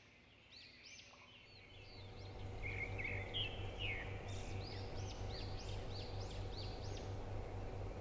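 Birds chirping in the background with short, repeated arching calls, joined about two seconds in by a louder low, pulsing mechanical hum.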